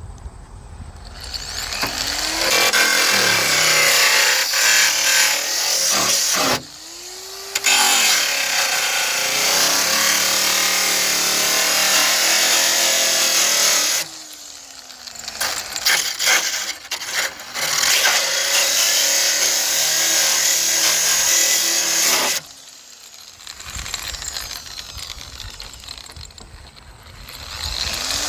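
Angle grinder cutting into the metal of an Audi A4 hood to free a jammed latch. It runs in several long bursts with brief stops between them, its motor pitch rising each time it starts and falling as it is released.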